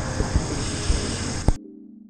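Handling noise on a handheld action camera: a steady rush with a few low bumps, cut off by a sharp click about a second and a half in, after which a faint low hum fades out.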